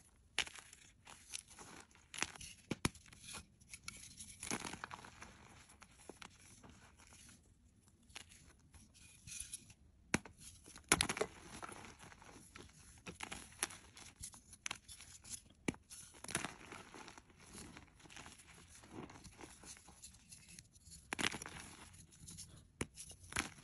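Reformed gym chalk blocks crumbling and breaking between fingers: irregular dry crunches and soft powdery crackles, with a sharper crack about eleven seconds in.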